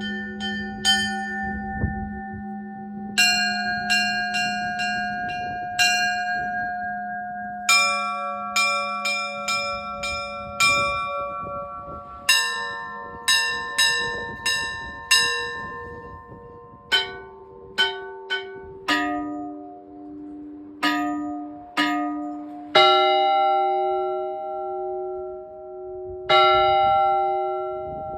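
Russian Orthodox church bells rung by hand in a zvon. Small bells are struck in quick runs over the long ring of deeper bells, changing to slower, more spaced strikes after about the middle, with two heavy strikes ringing on near the end.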